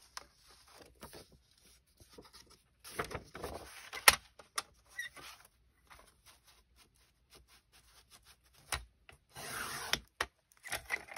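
Paper sheets rubbed and slid over a sliding paper trimmer, with light taps and clicks as the sheet is squared up. Near the end, the trimmer's cutting head is drawn along its rail in a short rasping stroke that ends in a click, slicing off the excess paper.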